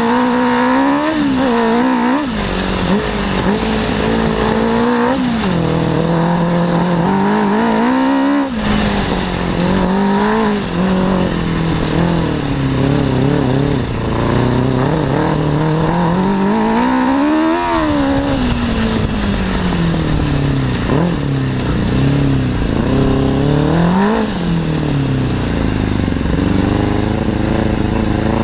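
Off-road buggy's Suzuki 600 cc inline-four motorcycle engine driving the buggy over a rough grass track, heard close from on board. Its pitch keeps rising under throttle and dropping sharply as the throttle is lifted or a gear is changed, with one long climb past the middle.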